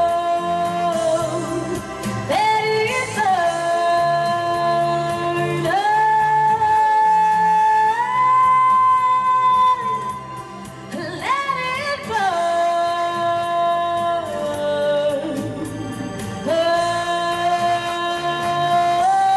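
A woman singing long held notes into a microphone over amplified backing music, swooping up into a new note twice.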